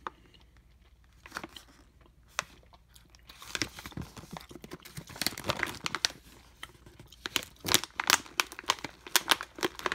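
Plastic snack pouch crinkling as it is handled and opened: a few soft clicks at first, then steady crinkling and rustling from about three and a half seconds in.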